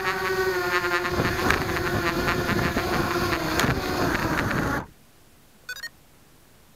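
Blade 200QX quadcopter's electric motors and propellers buzzing, picked up by the onboard #808 keychain camera. About a second in, the buzz turns rough and clicky as the quad sits on loose gravel, then it cuts off suddenly as the motors stop. A brief run of high electronic beeps follows.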